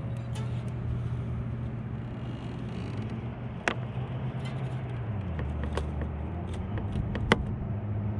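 Electric trolling motor (MotorGuide Xi3) humming steadily. Its pitch steps down about five seconds in and back up about a second later as its speed changes. A few sharp clicks sound over it.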